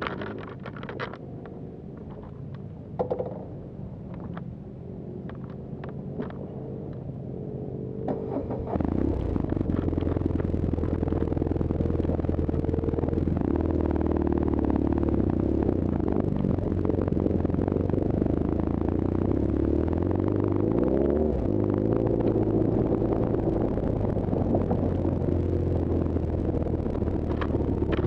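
A few seconds of small clicks and handling noises, then about a third of the way in the BMW R1200GS's boxer-twin engine starts and runs steadily, with a brief rev about two-thirds in as the motorcycle moves off over sand.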